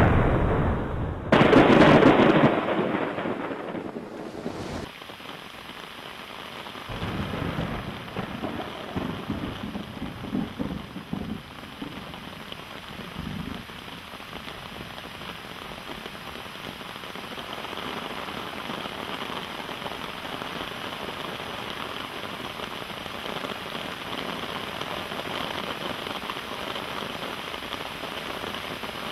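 A loud thunderclap about a second in, dying away over a few seconds, then steady heavy rain, with lower rumbles of thunder under it for several seconds before the rain continues alone.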